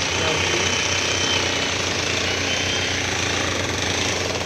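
Jackhammer breaking up road paving, a continuous rapid hammering with no pause.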